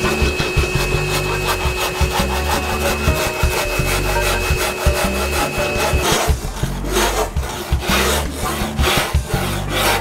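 Long hand file pushed in repeated strokes across hardened filler on a fibreglass sailboat rudder, a scraping rasp. The strokes come quickly at first and turn slower and longer after about six seconds.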